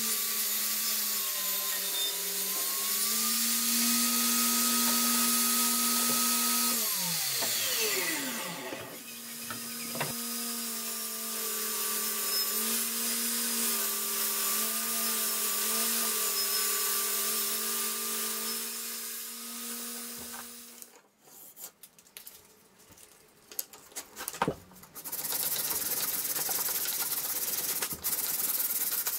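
Table saw running as it rips an oak board. About seven seconds in it is switched off and winds down with a falling pitch, then it starts again and runs steadily until it cuts off about two-thirds of the way through. Near the end, sandpaper is rubbed back and forth over a wooden board in hand sanding.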